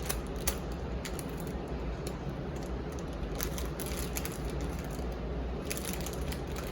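Plastic toy packaging pouch being handled and opened by hand, faint rustling with a few scattered small clicks.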